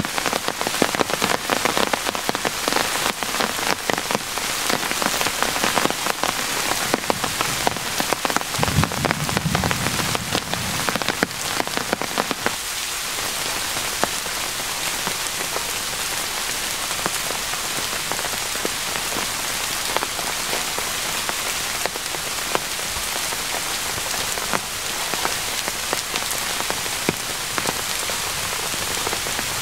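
Steady rain falling, with many sharp, close drop impacts through about the first twelve seconds, then an even hiss.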